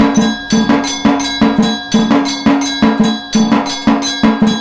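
Motor-driven aarti machine playing: beaters strike its steel drum, brass bell and small cymbal in a steady rhythm of about four strikes a second, with the bell ringing on between strikes. It cuts off abruptly at the very end.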